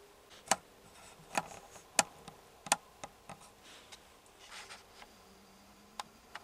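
Handling noise: a string of sharp clicks and knocks about half a second to a second apart, a brief rustle, then two more clicks near the end.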